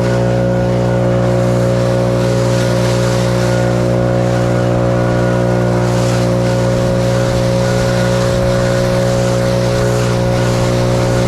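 Leaf blower running steadily at full throttle with a rush of air, blowing packed debris out of roof gutters.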